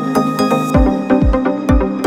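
Electronic dance music. A deep kick drum comes in under a second in and beats about twice a second under sustained synth chords.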